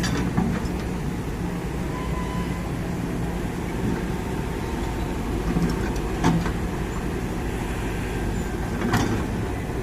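Kobelco SK200 excavator's diesel engine running steadily, with two sharp knocks, one about six seconds in and another near the end.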